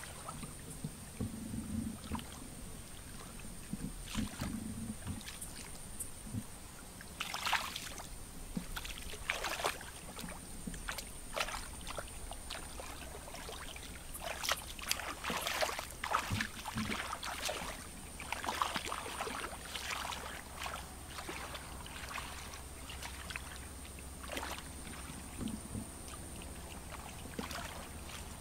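Shallow muddy water splashing and sloshing as a person wades and sweeps her hands through it, groping for fish by hand. The splashes come irregularly and grow busier after several seconds.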